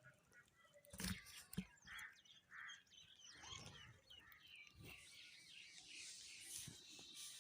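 House sparrows chirping faintly, the chirps growing into a dense chatter of many birds in the second half. A few soft knocks sound in the first half.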